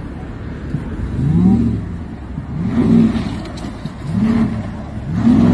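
Pickup truck engine revving up and dropping back four times, about once every one and a half seconds, as the driver tries to power the front wheel out of wet concrete.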